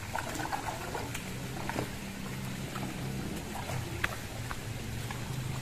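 Outdoor ambience beside a fish pond: a low hum that changes pitch in steps, with faint scattered clicks and ticks.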